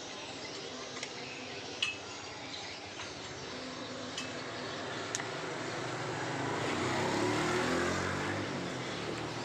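Steady workshop background noise with a few sharp metallic clinks, and a low engine sound that swells up about two-thirds of the way through and then eases off.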